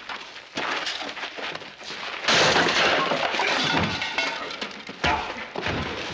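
Fistfight sound effects: a few blows and thuds, then a loud crash of something breaking about two seconds in that lasts over a second, and another heavy thud near the end.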